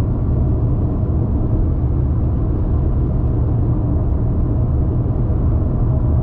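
Car in motion: a loud, steady low rumble of road and engine noise with no breaks.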